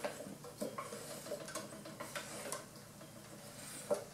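Faint, scattered light clicks and taps of hands handling the parts of a lawn mower's small engine around the flywheel and ignition coil, with one slightly louder click near the end.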